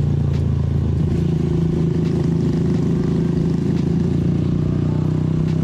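Benelli Motobi 200 Evo motorcycle engine running at a steady speed under way, its pitch holding almost level.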